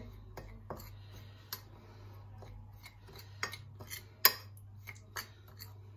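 Metal spoon stirring dry ground spices in a ceramic plate: soft scraping with irregular light clinks of the spoon on the plate, the sharpest clink about four seconds in.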